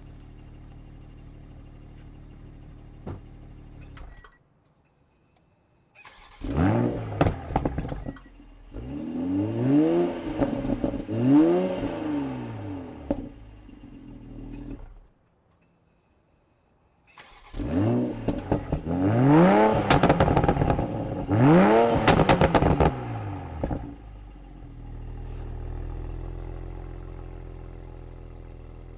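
2020 Toyota Supra Launch Edition's turbocharged 3.0-litre inline-six idling. It is then revved in two separate runs, each broken off by a cut: first two long rises and falls, then three quicker blips with sharp crackles and pops from the exhaust. It settles back to a steady idle near the end. The runs are the exhaust heard in standard and then sport mode.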